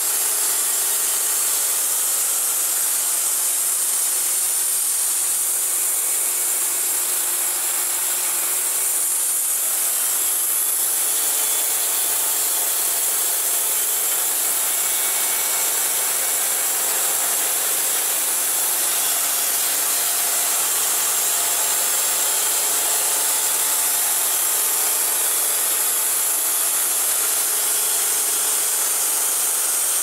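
Wood-Mizer LT40 Wide portable band sawmill cutting steadily through a large sycamore log, one even, unbroken sound with no pauses.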